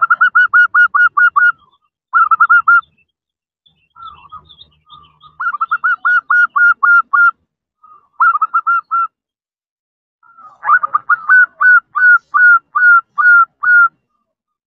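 Female zebra dove (perkutut) calling to draw a male: quick runs of high, clipped notes, about six or seven a second, given in five bursts with short pauses between them.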